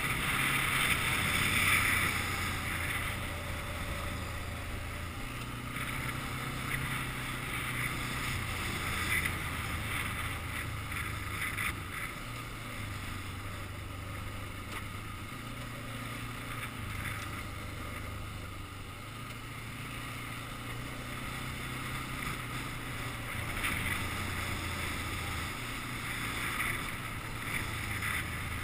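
Quad (ATV) engine running under way, a low drone whose pitch steps up and down every few seconds as the speed changes, with a rattling hiss from the wheels on the rough gravel track and wind on the microphone.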